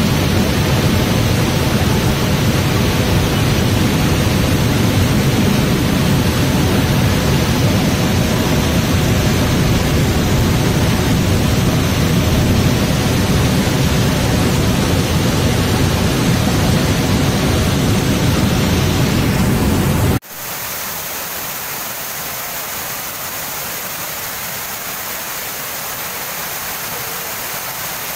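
Rain-swollen waterfall and muddy floodwater torrent rushing over rocks: a loud, steady, deep rush of water. About twenty seconds in it cuts off abruptly to a quieter, thinner rush of flood water.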